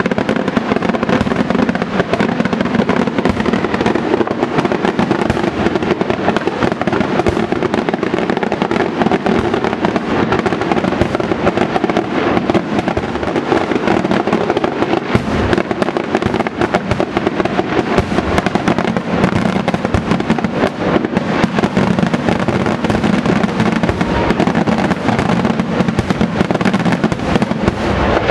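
Aerial fireworks shells bursting in a dense, unbroken barrage of bangs and crackling.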